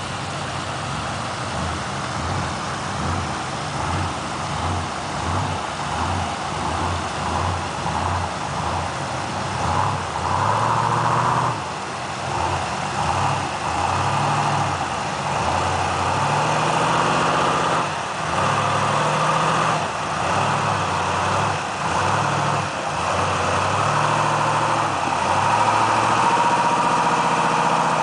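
Off-road Toyota 4x4 engine working under load while rock crawling up a waterfall: running low and uneven at first, then revving up in repeated bursts from about ten seconds in, each held a second or two before dropping back.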